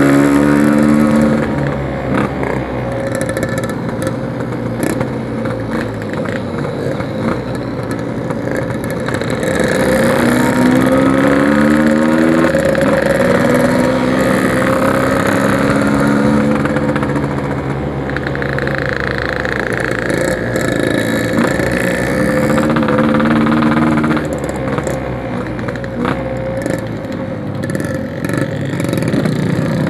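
Yamaha RX-King 135cc two-stroke single-cylinder motorcycle being ridden through a 'packing power' aftermarket exhaust. The engine note climbs under throttle and drops back several times as it pulls through the gears.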